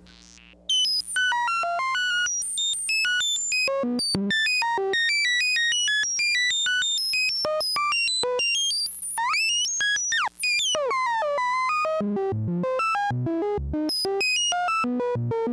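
Breadboarded 4-pole transistor lowpass filter self-oscillating with no audio input, its cutoff stepped by a sample-and-hold. It gives a pure tone that jumps to a new random pitch several times a second: the classic 'droid' bleeps. The tone starts about half a second in, swoops up and down in a few fast glides about nine seconds in, and steps lower near the end.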